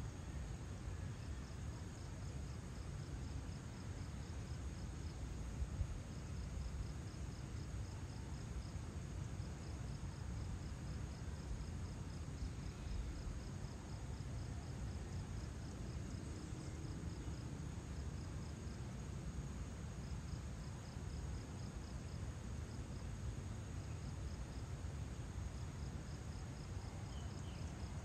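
Insects chirping in runs of rapid, evenly spaced high pulses that stop and start every few seconds, over a steady low rumble.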